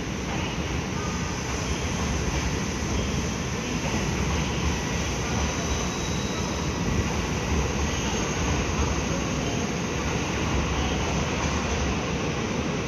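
Steady rumbling train noise on a station platform, getting a little louder in the first two seconds.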